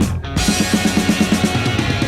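Arena goal song: rock music with drums and guitar. One track cuts off, and a new one starts about a third of a second in with a fast, driving beat.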